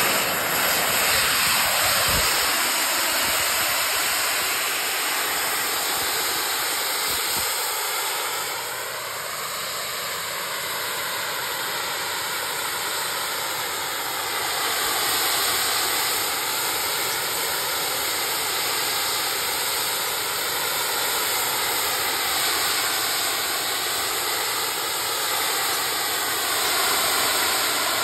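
The AB6 JetQuad's four small jet engines running: a loud, steady hiss with a whine whose pitch slowly rises and falls as thrust is adjusted to lift the craft and hold it in a hover.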